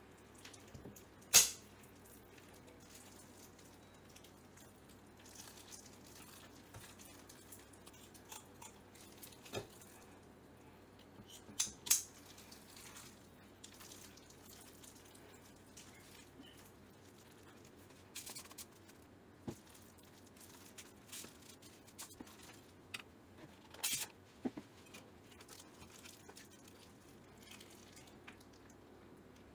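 Scattered short, sharp clicks and snips over a faint background hiss: kitchen shears cutting through a fish and gloved hands handling it on a wooden cutting board. The loudest click comes about a second in, with a quick pair around twelve seconds.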